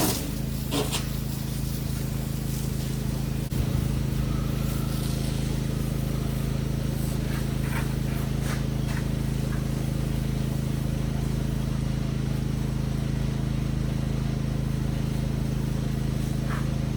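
Pressure washer engine running steadily under a light plain-water rinse, with the hiss of the spray over it. It gets slightly louder about three and a half seconds in.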